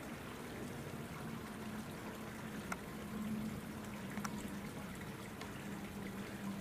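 Faint steady trickling of water under a low steady hum, with two brief faint clicks.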